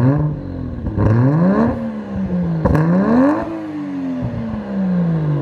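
Toyota JZX90 Mark II's 1JZ-GTE twin-turbo inline-six, warmed up and fitted with a muffler, revved three times from idle. Each rev rises and falls back, and the last one winds down slowly.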